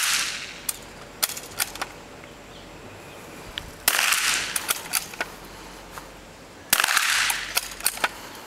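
Two .22 rifle shots about three seconds apart, each a sharp crack with a short echoing tail, and each followed by a few quick sharp clicks.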